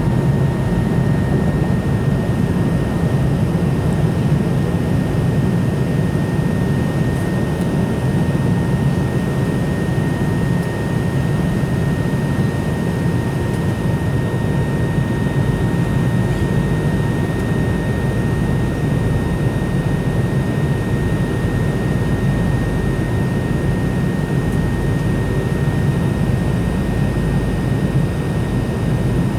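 McDonnell Douglas MD-90 jet airliner with its rear-mounted IAE V2500 engines running steadily: an even rumble of engine and airflow noise, with a thin high whine held throughout.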